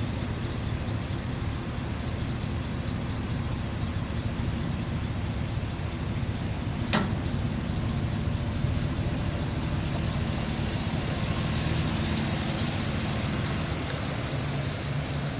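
Truck engine running steadily, with a single sharp click about halfway through.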